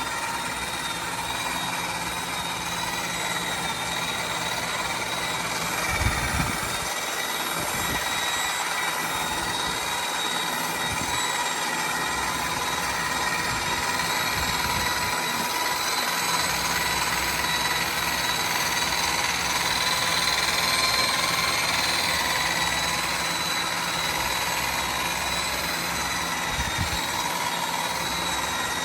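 Harbor Freight electric buffer running steadily at high speed with a wool pad on a plastic headlight lens: a continuous motor whine that wavers slightly in pitch. The owner says the worn-out buffer has sped up on its own. Low thumps come about six seconds in and again near the end.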